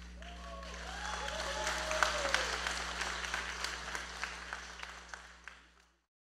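Theatre audience applauding, swelling over the first two seconds and then fading out, with a few voices cheering near the start over a steady low electrical hum.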